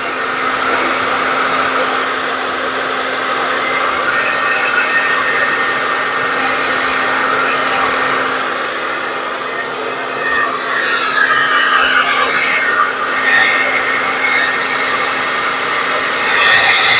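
Handheld blow dryer running, a steady rush of air over a constant motor hum, blowing across wet acrylic paint on a tile to spread it and open up cells. The sound swells a little about two-thirds of the way in and again near the end.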